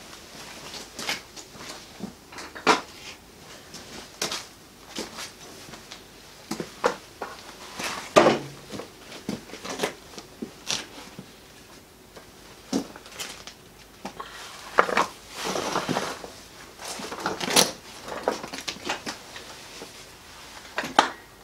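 Knocks and clunks of timber blocks and beams being handled and fitted under a table frame, irregular and scattered, with a few longer scraping sounds.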